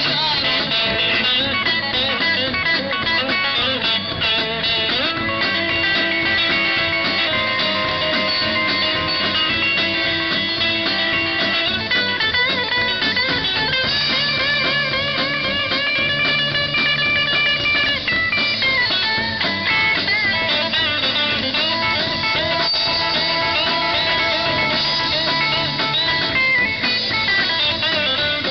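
Live amplified rock band playing an instrumental break without vocals: an electric guitar lead with bent and wavering notes over a drum kit.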